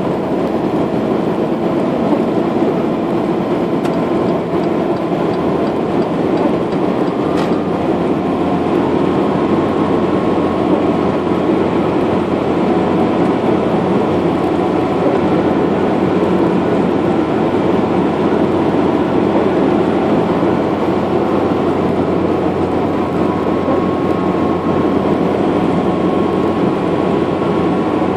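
Steady engine and tyre noise heard from inside the cabin of a vehicle driving along a highway, with one faint click about seven seconds in.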